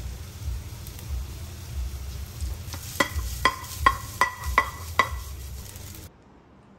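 Spatula stir-frying egg fried rice in a nonstick wok over a low frying sizzle and rumble. About three seconds in comes a quick run of about six sharp knocks of the spatula on the pan, each ringing briefly, before the sound cuts off abruptly near the end.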